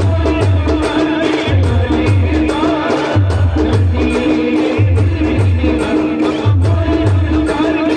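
Timli band music at a steady loud level: a repeating deep bass pattern under a pitched melody line, driven by an even percussion beat.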